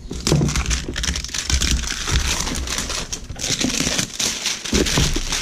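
Clear plastic packaging bag crinkling continuously as it is pulled off and handled, a dense run of sharp crackles.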